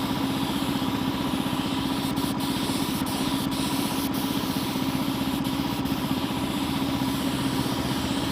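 A motor running steadily with an even, fast-pulsing hum that does not change.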